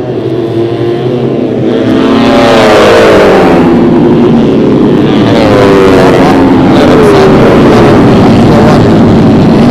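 A pack of 150cc four-stroke underbone racing motorcycles riding by on the circuit, several engines revving at once with their pitches rising and falling. The sound gets much louder about two seconds in.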